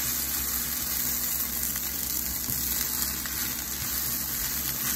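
Vegetable rice with spinach, carrots and peppers sizzling steadily in a stainless steel pan as it is stirred with a wooden spoon.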